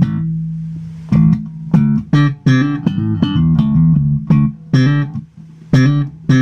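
Electric bass played slap style through a Kalikot Audio Hikari pedal in active mode, with the mid boost on and the compressor off: a held low note, then a run of sharp slapped and popped notes two to three a second. The pops come out bassy but still loud and boomy, unevened because the compression is off.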